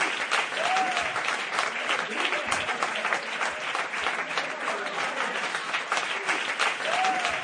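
A crowd of people clapping steadily, many hands at once. A short rising-and-falling call rises above the clapping about a second in and again near the end.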